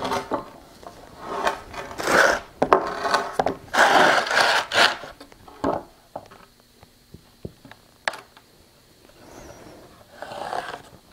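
Wooden boards of framing lumber being slid and scraped over each other and the concrete floor, with a few knocks of wood on wood, over the first five seconds or so. Then only a few light taps, and a short scratching near the end.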